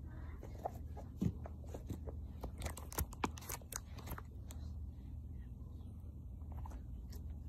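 Squishy Nee-Doh stress ball being squeezed and handled: a quick run of crackling clicks and squishes for the first four seconds or so, then only a few faint ones.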